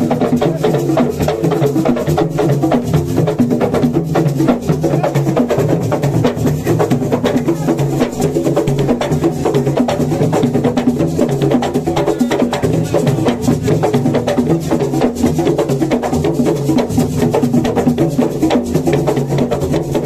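Ensemble of square wooden frame drums (assiko drums) beaten by hand in a fast, dense, interlocking rhythm that keeps going without a break.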